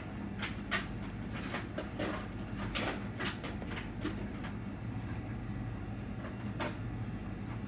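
Soft irregular taps, squishes and rustles as a hand presses cheese down into a glass bowl of layered rigatoni on a countertop, with a steady low hum underneath.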